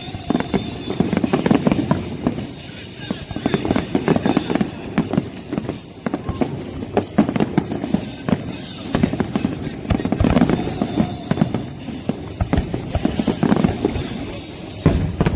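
Music with drums, with many sharp cracks and bangs throughout.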